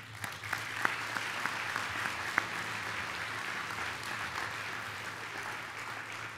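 Audience applauding. The applause starts at once, with a few sharp single claps standing out in the first two or three seconds, and tapers off toward the end.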